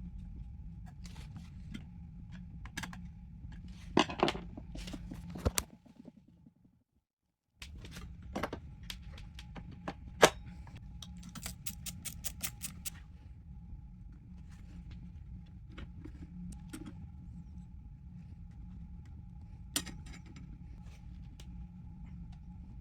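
Scattered clicks and knocks of handling tools and small metal parts, with one sharp knock about ten seconds in and a quick run of about a dozen clicks soon after, over a steady low hum. The sound cuts out completely for about a second and a half after about six seconds.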